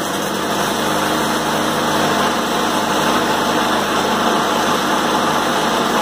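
Self-propelled walk-behind lawn mower's engine running steadily on a test run, with its drive belt just refitted.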